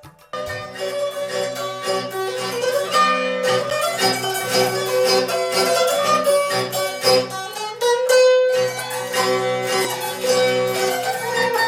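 Instrumental music with several sustained notes, starting abruptly just after the start.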